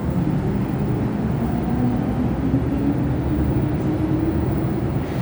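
Steady low rumble of an MTR M-train metro car running, heard from inside the car, with a faint hum in it.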